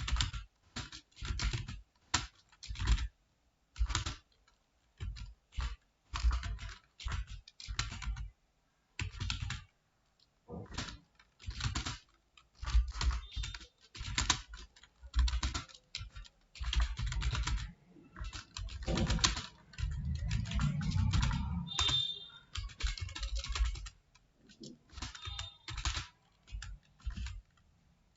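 Computer keyboard typing in quick bursts of keystrokes with short pauses between them, and a longer unbroken run of typing about two-thirds of the way through.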